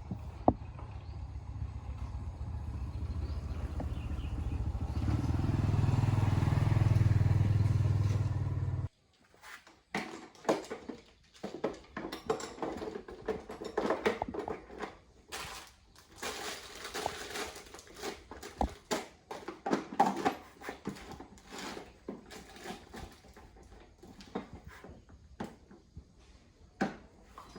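A motor or engine runs steadily and grows louder, then cuts off suddenly about nine seconds in. After that come scattered clinks and knocks of hand tools and metal parts being handled during motorbike tyre and inner-tube work.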